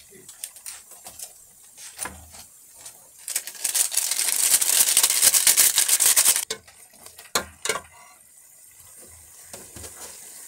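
Kitchen or table clatter of utensils on dishes: scattered clicks and knocks, with about three seconds of dense crackling in the middle that cuts off suddenly.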